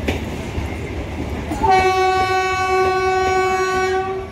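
Passenger train moving along a platform, its wheels clicking over rail joints; about a second and a half in, a train horn sounds one long steady note for about two and a half seconds.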